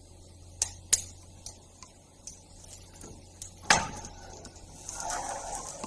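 Scattered light clicks and taps of small hard objects being handled, with one sharp knock about two-thirds through and a short rustle near the end.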